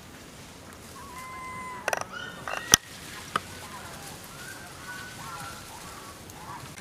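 Monkey calls: a held high squeal about a second in, later short squeaks and chirps, with a few sharp clicks near the middle, the loudest a single crack.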